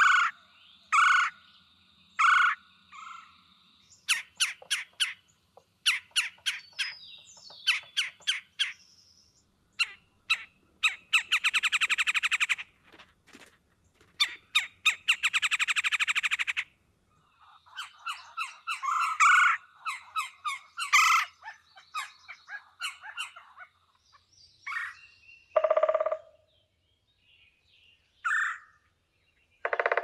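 Red-bellied woodpecker: runs of short, loud call notes, then two bursts of rapid drumming on wood near the middle, each about two seconds long, then more calls. The drumming is the woodpecker's song, used to claim territory and attract a mate.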